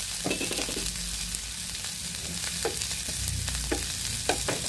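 Diced garlic, onion and red bell pepper sizzling in hot oil in a nonstick frying pan. A wooden spatula scrapes and taps against the pan several times as it stirs them.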